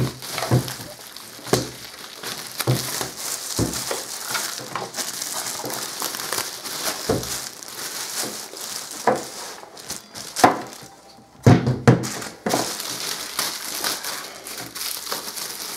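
Clear plastic film and bubble-wrap packaging crinkling and rustling as it is pulled and stripped off a speaker and its cable, with many small crackles. A few louder thumps come around eleven to twelve seconds in.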